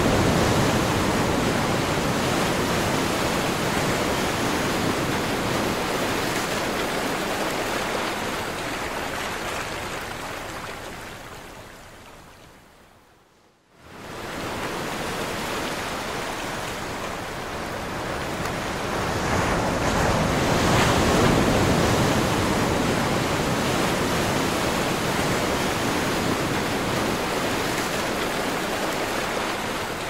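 Ocean surf washing onto the shore: a steady rushing noise that swells and eases slowly. About halfway through it fades gradually to near silence, then returns within a second.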